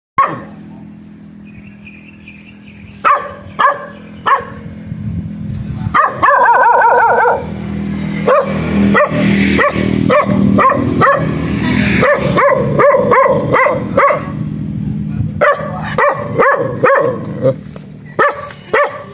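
Dog barking repeatedly: a few spaced single barks, one longer wavering bark about six seconds in, then long runs of quick barks.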